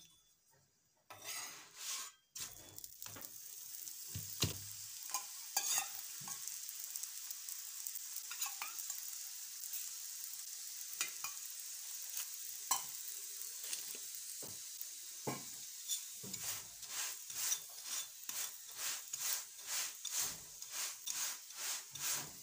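Saag paratha sizzling as it shallow-fries on a hot iron tawa, with scrapes and taps as it is pressed and turned. In the last several seconds the strokes come regularly, about two a second.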